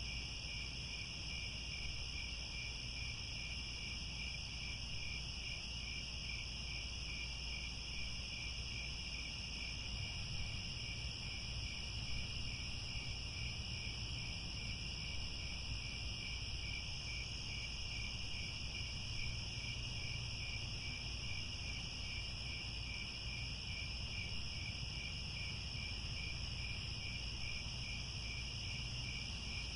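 A steady chorus of crickets chirping in high continuous trills, one of them pulsing in an even rhythm, over a low steady rumble.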